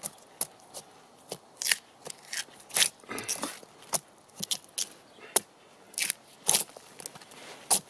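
Draw knife shaving bark off a poplar log in short, irregular scraping strokes, about two a second, with one longer pull near the middle.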